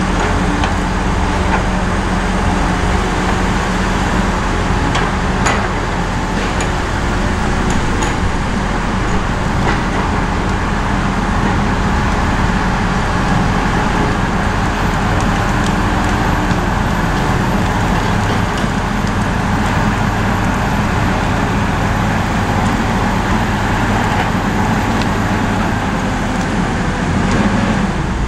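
Heavy diesel engines of a Tigercat 234B log loader and a grapple skidder running steadily, with a few light knocks. The engine note shifts about halfway through.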